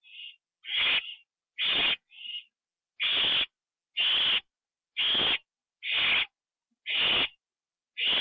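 Barn owl giving harsh, rasping hiss calls about once a second, each lasting around half a second, with shorter, fainter hisses in some of the gaps.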